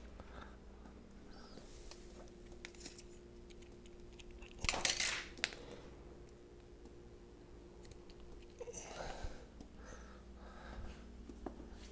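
Handling noises: a short clatter ending in a sharp click about five seconds in, and softer rustling around nine seconds, over a faint steady hum.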